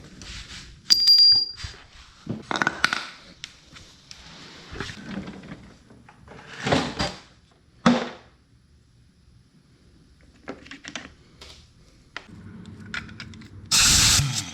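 Metal sockets and tools clinking and clattering as they are handled, with a few sharper knocks, then near the end a loud burst of about a second from a pneumatic impact wrench.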